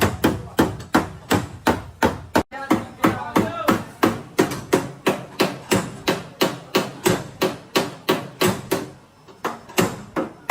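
Hammer blows on car-body sheet metal during panel beating: a steady run of about three strikes a second, each ringing briefly, with a short pause near the end.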